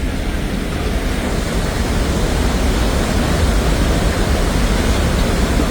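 A mountain river in flood rushing past with a loud, steady, unbroken noise, deepest at the low end.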